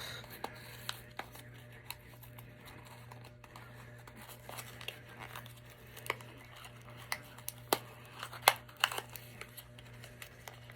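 Mystery pin blind packaging crinkling and tearing as hands struggle to open it, with irregular sharp crackles, the loudest in the second half. A faint steady low hum runs underneath.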